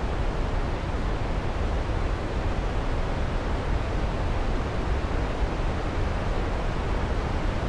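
Steady roar of rushing water from a waterfall and river, an even rushing noise heaviest in the low end.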